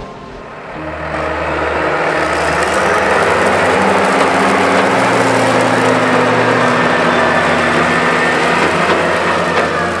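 Case IH MX170 tractor engine running under load as it pulls a grain trailer, coming up in level over the first few seconds and then steady.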